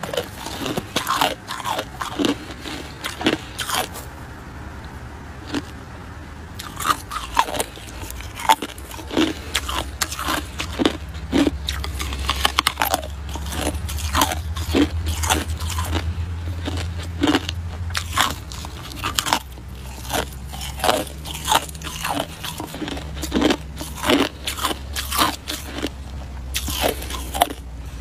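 A person biting and chewing a thick icicle: many sharp crunches and cracks of hard ice breaking between the teeth, coming irregularly about once or twice a second. A low steady rumble runs underneath.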